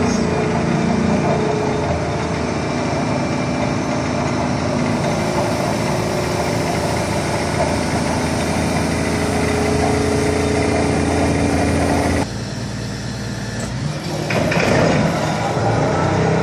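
DX420 excavator's diesel engine running steadily, with tones from the engine and hydraulics. About twelve seconds in the sound drops suddenly to a lower level, then rises again about two seconds later.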